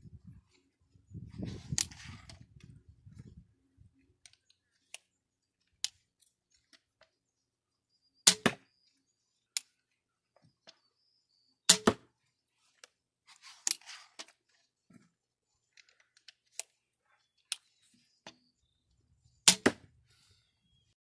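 Shots from an M48 Hell Hawk 80-lb pistol crossbow firing field-tip bolts into a pork-rib and foam target, three sharp cracks several seconds apart, each a quick double crack. Fainter clicks and rustling come between the shots.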